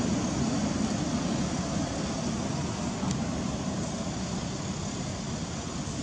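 Steady low rumbling outdoor background noise, with no animal call standing out, and one faint click about three seconds in.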